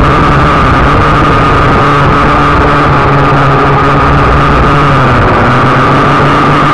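Syma X8C quadcopter's four brushed motors and propellers running in flight, picked up loud and close by the drone's own onboard camera: a steady high whine over a lower hum.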